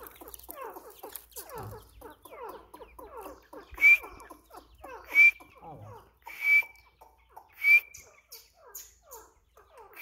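Partridges (teetar) calling: many soft, quick falling chirps run throughout, and from about four seconds in a loud, sharp call sounds four times, roughly every second and a quarter.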